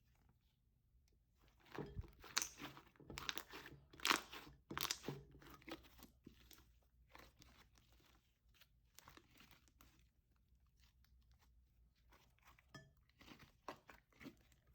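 Hands squeezing and kneading slime: irregular wet crackling and popping, loudest and densest in the first half, then fainter and more scattered.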